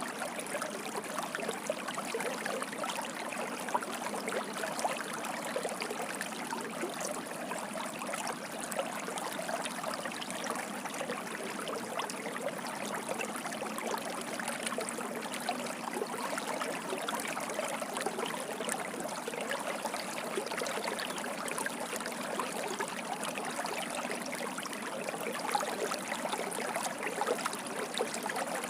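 Water streaming and splashing in a steady, continuous rush, with fine bubbling and trickling detail throughout.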